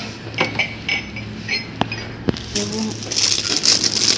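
A few light clinks and knocks of goods handled on a store shelf. From about three seconds in, a plastic bag crinkles as a packaged set of plastic measuring scoops is picked up and handled.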